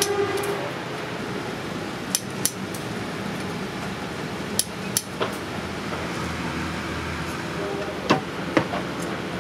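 Sharp metallic clicks and clinks, about eight in all and in small groups, from lead-alloy battery grid plates being stacked, snipped with tin snips and knocked square on a block.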